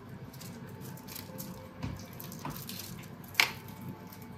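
Soft, wet squishing of roasted onions being squeezed out of their skins by hand, with one sharp click about three and a half seconds in.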